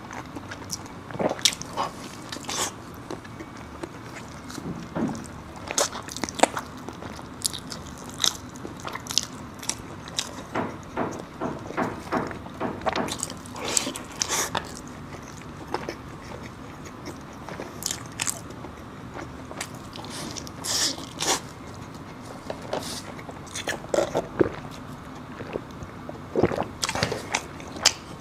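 Close-up eating sounds: a person biting and chewing crunchy food, with irregular sharp crunches and smacking clicks.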